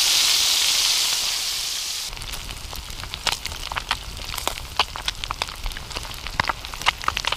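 Whole fish frying in a pan of hot oil. For about two seconds there is a dense, steady sizzle; then, after a cut, the oil goes on with quieter, irregular crackling and popping.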